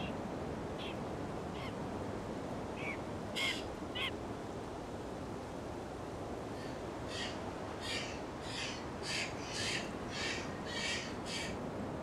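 Pied currawong calling: a few scattered short harsh calls, then about halfway through a run of about eight quick repeated calls, roughly two a second, over a steady background hiss.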